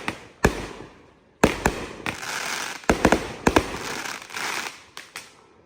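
Backyard consumer fireworks going off: a rapid string of sharp bangs, about a dozen, with a crackling hiss through the middle of the stretch. Two last bangs come near the end.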